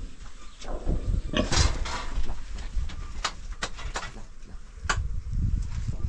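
Pigs grunting, with several sharp clicks or knocks in between.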